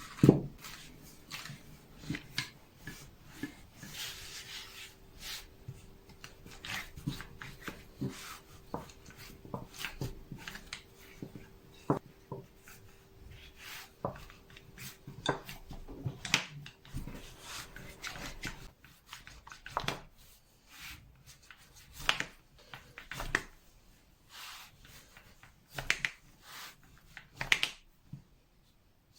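Kitchen work: scattered clicks and knocks of utensils and dishes being handled, with a steady hum from about four seconds in until about nineteen seconds in.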